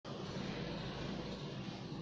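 Steady background noise: an even hiss with a low hum underneath, and no distinct event.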